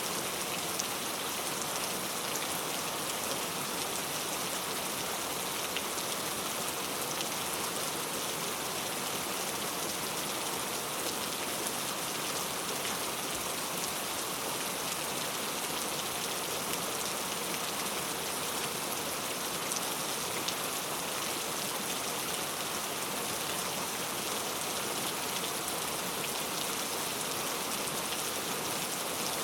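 Heavy rain falling steadily, a dense even hiss of drops hitting the ground and hard surfaces.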